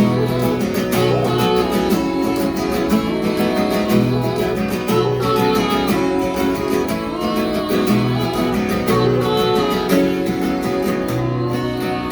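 Acoustic guitar strummed in a steady rhythm during an instrumental passage of a live folk-country song.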